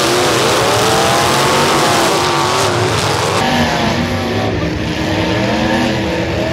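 Several demolition derby car engines revving and labouring together, their pitches rising and falling over a thick roar of noise. The mix changes abruptly about three and a half seconds in.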